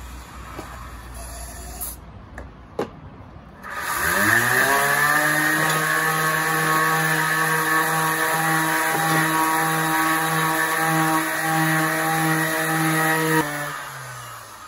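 Handheld electric sander switched on about four seconds in, spinning up to a steady whine while it sands down the edge of a pine door frame. It is switched off near the end and winds down.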